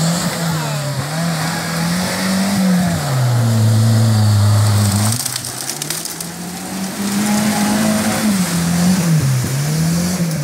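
A 4x4 SUV's engine revving hard as it fords a muddy stream; the engine pitch rises and falls repeatedly and is loudest about four seconds in. Water splashing and churning around the wheels.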